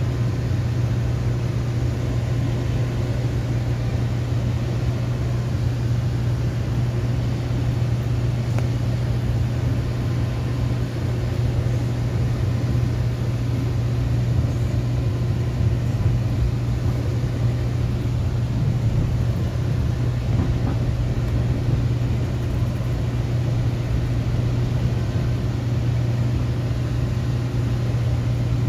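Steady rumble of a moving passenger train heard from inside the carriage, with a constant low hum under it.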